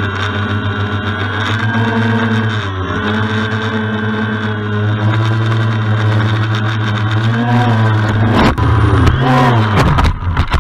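Talon Tricopter's three 900 KV brushless motors and propellers running with a steady hum, the pitch dipping and recovering a few times as the throttle changes. Near the end come a few sharp knocks as the craft tips over into the grass.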